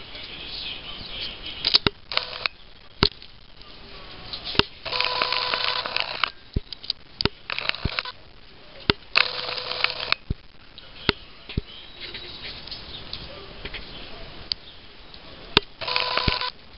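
A camera's zoom motor whining in short bursts of about a second, three times, among scattered sharp clicks.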